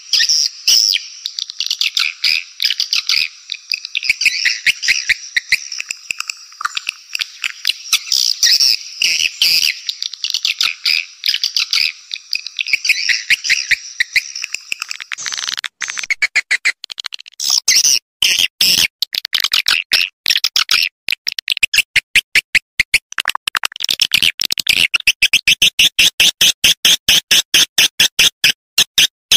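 Swiftlet calling track: dense, high-pitched twittering chirps. About halfway through it changes to a fast, even run of sharp clicking chirps, about five a second.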